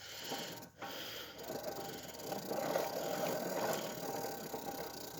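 A pedal car being pedalled along, its tyres crunching on gravel and its chain drive rattling.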